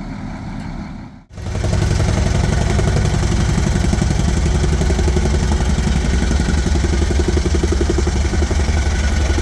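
A motor engine runs loud and steady with a fast, even pulse, after a brief cut-out about a second in.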